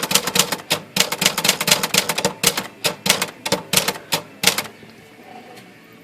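Erika manual typewriter being typed on: a quick run of sharp keystroke clacks, several a second, that stops about five seconds in. It is a test line typed just after the shift motion was adjusted.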